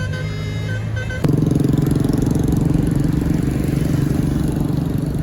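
Bus telolet horn playing a short multi-note tune, cut off about a second in by the loud, steady engine drone of a heavy vehicle passing close.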